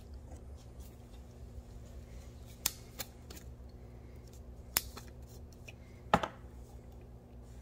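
A few sharp clicks from a small metal can of urethane activator being picked up and handled: two close together, another a couple of seconds later, then a louder clack with a short rattle near the end. A low steady hum runs underneath.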